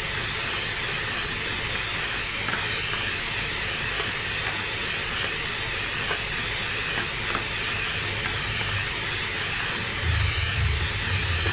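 Electric hand mixer (Kenwood) running steadily, its beaters whipping non-dairy whipping cream in a bowl; a continuous motor hum with a thin high whine.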